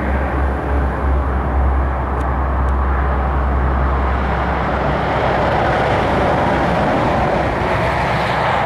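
Motorway traffic running past in a continuous rush of tyres and engines. A deep low rumble underneath fades out about five seconds in.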